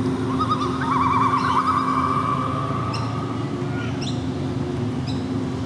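A steady mechanical hum with birds calling over it: a warbling call about a second in, then three short sharp chirps about a second apart.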